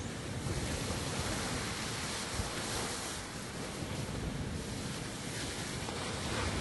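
Sea waves breaking against a rocky cliff: a continuous rushing wash of surf that swells about half a second in and again around three to four seconds in.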